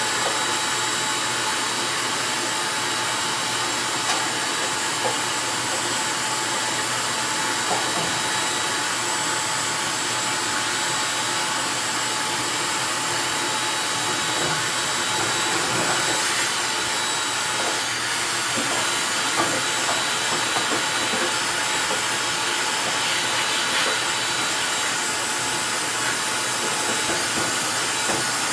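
Vacuum cleaner running steadily with a constant whine, sucking built-up lint out of a dryer's blower housing, with a few small clicks. The lint build-up is what made the dryer vibrate and run loudly.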